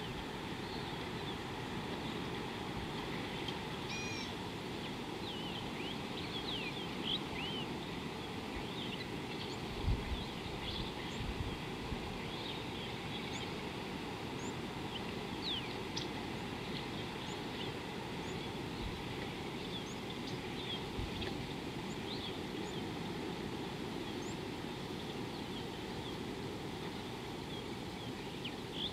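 Birds chirping and calling with many short, quick notes over a steady background hiss, and a few low thumps about ten seconds in.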